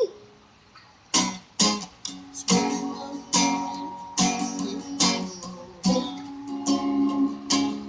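Acoustic guitar being strummed, chords ringing between strokes, starting after a short pause about a second in.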